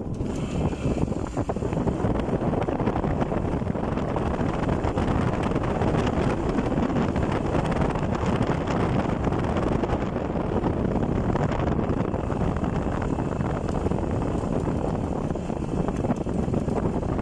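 Wind buffeting the microphone of a motorcycle in motion, with the motorcycle's engine running underneath as a steady rumble.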